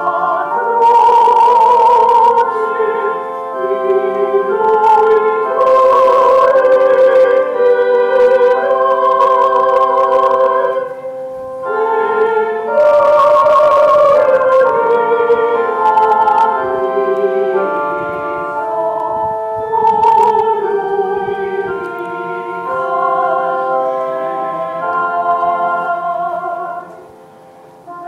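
A liturgical hymn sung by voices in long held notes with vibrato, the words' consonants audible as brief hisses, with a short pause near the end.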